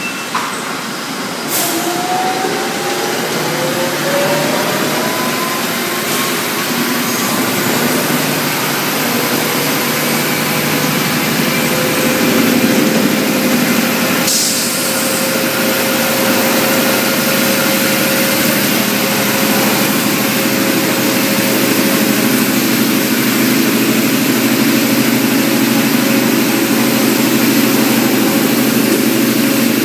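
Industrial laundry machinery around a Milnor continuous batch washer running: a continuous loud mechanical din. A couple of seconds in, a motor winds up in pitch and settles into a steady hum. There is a short click near the start and another about halfway through.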